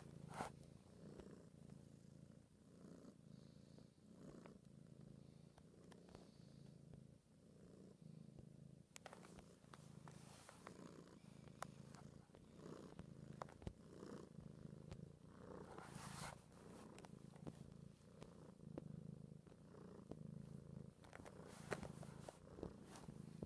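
Long-haired seal-point cat purring close to the microphone, the purr swelling and fading with each breath about once a second. A few brief rustles and clicks of handling come through over it.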